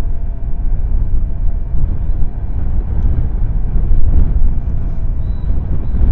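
Wind buffeting the nest camera's microphone: a loud, steady low rumble that swells and eases in gusts. A short, faint high whistle comes about five seconds in.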